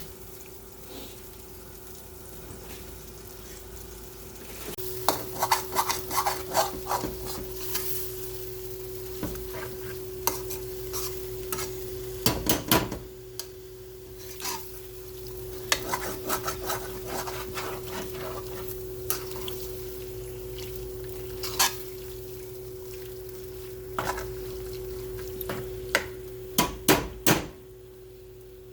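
A spoon stirring chicken in a pan, scraping and knocking against it in bursts of clatter, over a faint sizzle as the chicken cooks in its own juices. A steady hum runs underneath.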